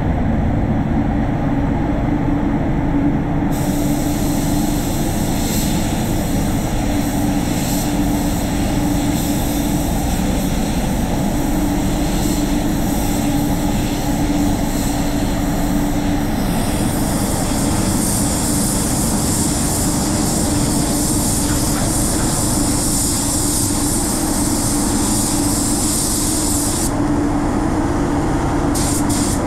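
Paint spray booth's air extraction running with a steady hum. From about three seconds in, a spray gun's air hisses; the hiss grows louder about halfway through and stops shortly before the end.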